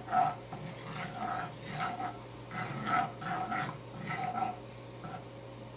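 Utensil scraping around a frying pan as garlic butter sauce is stirred, a rhythmic squeaky scrape about twice a second that dies away near the end.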